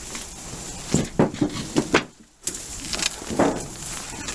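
Footsteps crunching and rustling through dry weeds, brush and debris in a few irregular steps, with a brief dropout about two seconds in.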